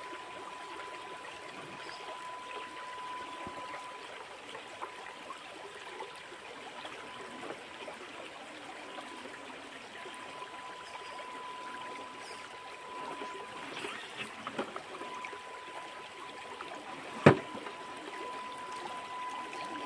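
Shallow rocky stream trickling and flowing, with a thin steady whine throughout. A few small clicks come a little past the middle, and one sharp knock comes near the end.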